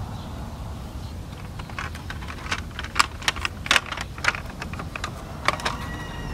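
Plastic wheels of a toy pickup truck rolling over dry dirt and small clods, giving irregular sharp crunching clicks over a low rumble.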